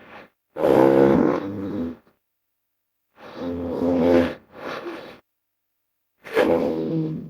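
Creature roars for a hippo-bear hybrid, mixed from hippopotamus and bear recordings: three deep, pitched roaring calls of a second or two each, separated by short silences, the last starting near the end.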